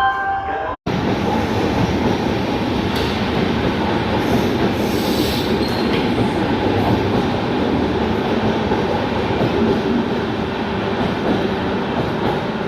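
Express train passing close by at speed: a loud, steady rumble and rattle of coaches and wheels on the rails, starting abruptly just under a second in.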